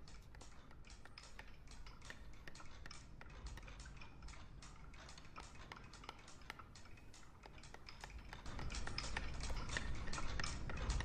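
Faint, irregular sharp clicks and taps, a few a second, of a woodcarver's blade chipping at wood, growing louder about eight seconds in.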